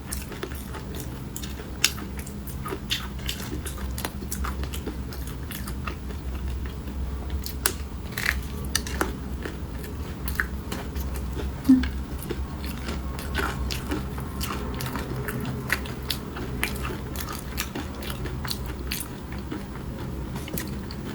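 A person biting and chewing a crunchy fried snack close to the microphone, with many irregular crisp crackles.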